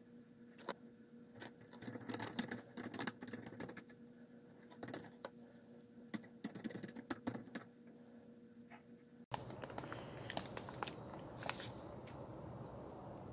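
Typing on a computer keyboard in irregular runs of clicks over a steady electrical hum. About nine seconds in the sound cuts to a noisier room with a few scattered clicks.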